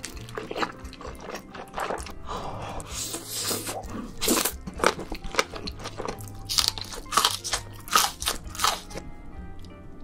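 Close-miked eating of black bean noodles: repeated loud slurps and crunchy, wet bites and chewing, over background music.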